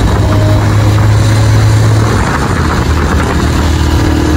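A motor vehicle's engine running steadily, heard from close by. Its low hum drops a little in pitch about two seconds in.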